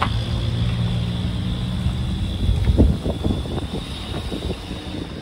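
Engine of a decorated 4x4 SUV pulling out and driving away, a steady low hum that fades as it goes, with a short thump about two and a half seconds in.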